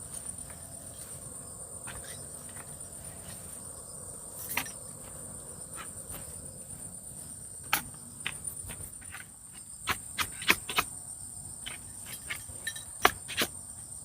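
Steady high-pitched drone of insects, crickets or cicadas, in the forest. Scattered sharp knocks and taps come through it, more of them in the second half.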